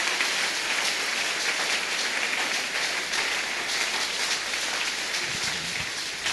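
A large congregation applauding steadily, a dense, even clapping.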